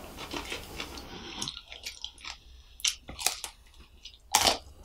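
Close-miked eating of a deep-fried samosa: chewing with crisp crunches of the fried pastry, and a loud crunchy bite into the samosa near the end.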